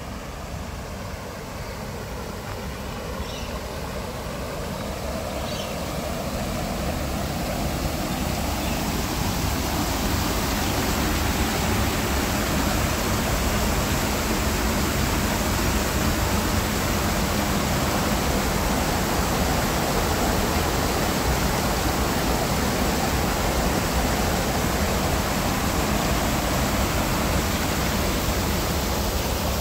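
Rushing water, a steady noise that grows louder over the first ten seconds or so and then holds steady.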